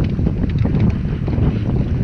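Strong wind buffeting the microphone: a loud, steady low rumble, with light slaps of choppy water against a kayak.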